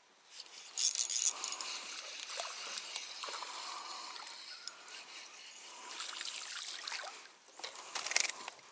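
A small hooked black bass splashing at the surface as it is reeled in, then spattering water as it is swung into the boat. The splashing is loudest about a second in and again near the end.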